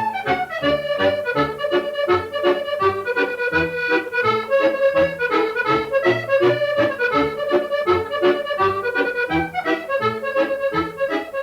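Accordion playing a lively tune: a melody over a steady, evenly pulsing bass-and-chord accompaniment.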